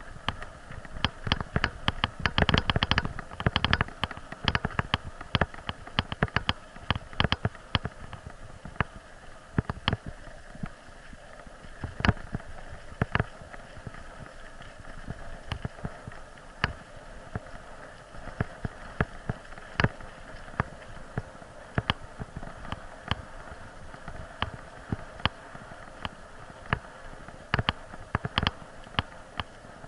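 Bicycle jolting over a bumpy dirt forest track: irregular sharp knocks and rattles from the bike and its mounted camera, over a steady noise of tyres rolling on leaves and dirt. The knocks come thickest about two to four seconds in.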